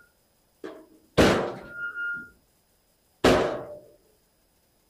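Heavy knocks, a small one followed by two loud ones about two seconds apart. The first loud knock leaves a short ringing tone after it.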